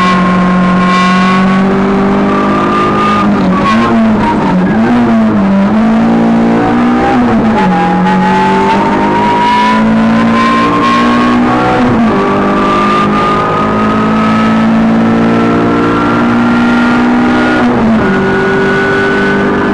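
Rally Renault Clio engine running hard, heard from inside the cabin. Its note dips and wavers for a few seconds around a bend, then the car pulls away with gear changes about twelve and eighteen seconds in, while a high whine climbs steadily as speed builds.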